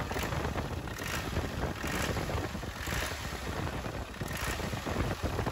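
Land Rover 300Tdi diesel engine running steadily with a chattery noise, which the mechanics link to a broken exhaust manifold gasket.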